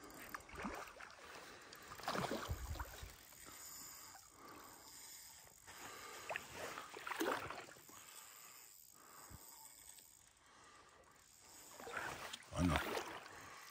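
Water splashing and sloshing in irregular bursts, with a low thump about two and a half seconds in and a louder one near the end, and faint indistinct voices.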